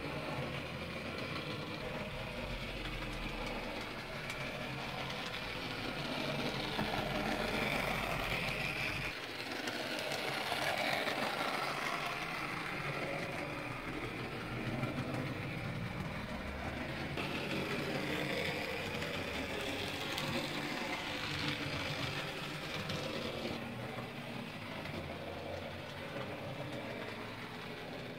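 Model railbus, a Dapol railbus kit running on a Lima Plymouth diesel shunter chassis, running along the track with the steady whir of its small electric motor. The noise swells and eases a little as it goes.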